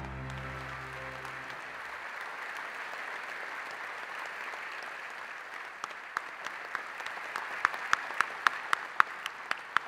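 A large audience applauding, with music fading out in the first two seconds. From about six seconds in, loud, sharp single claps close by stand out from the applause, about three a second.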